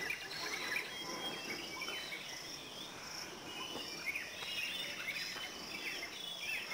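Many short bird chirps and twitters over a steady high insect drone.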